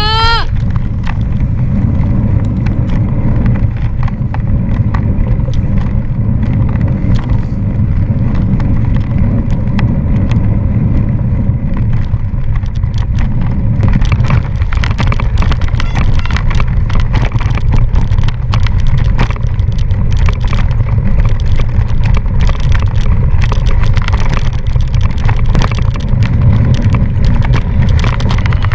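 Wind buffeting the microphone of a mountain biker's action camera while riding, a loud low rumble. From about halfway through, the bike rattles and knocks densely over rough ground.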